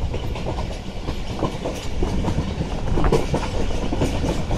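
Passenger train running along the track, heard from inside a moving coach: a steady rumble with irregular rattling and clatter from the wheels and carriage.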